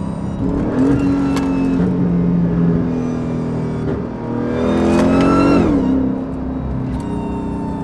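Supercharged V8 of a 1,000 hp Dodge Charger under way, with supercharger whine over the engine note. About four and a half seconds in, the revs climb and then drop back sharply.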